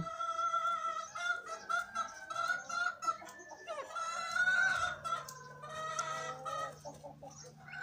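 Young pheasant calling in a long, nearly unbroken run of short pitched notes, rising briefly about halfway through.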